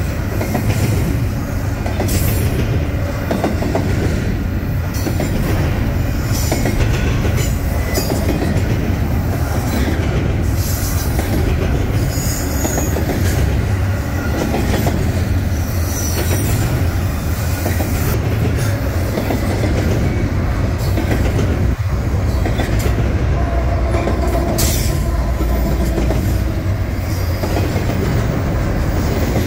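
Union Pacific double-stack intermodal train's well cars rolling past close by: a steady, loud rumble of steel wheels on rail with repeated clicks and knocks, and a few brief high wheel squeals.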